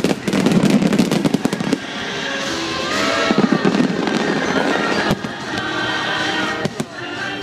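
Aerial fireworks shells bursting and crackling in quick succession, densest in the first two seconds and then in scattered cracks, with show music playing underneath.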